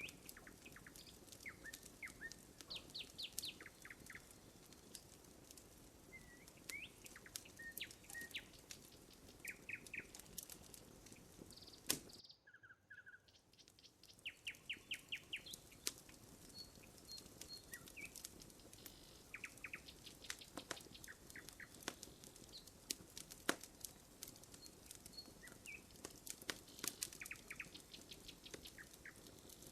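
Wood fire crackling with frequent sharp pops, while small birds chirp in short rapid trills. The sound drops out briefly about twelve seconds in.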